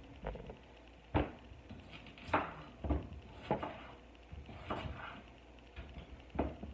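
Knife chopping small potatoes on a cutting board: a series of sharp knocks, roughly one a second, somewhat irregular.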